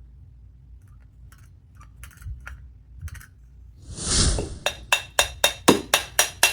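Metal-on-metal clicks and clinks from a Holley 750 carburettor being taken apart with hand tools: a few light ticks, a short hiss about four seconds in, then a steady run of about ten sharp metallic clicks, roughly four a second.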